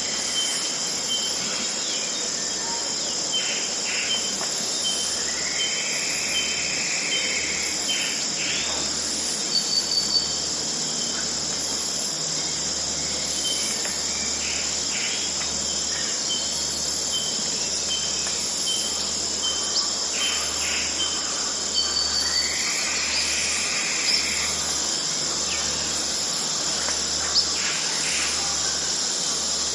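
Amazon rainforest dawn ambience: a dense, steady chorus of insects, with rows of short repeated calls and scattered sharp chirps over it. Twice, a longer swelling call rises and falls.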